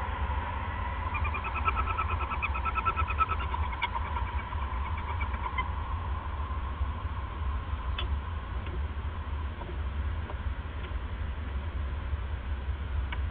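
Barn owl calling in the nest box: a rapid run of short notes at one pitch lasting a couple of seconds, starting about a second in. A few faint sharp clicks follow later, over a steady low hum.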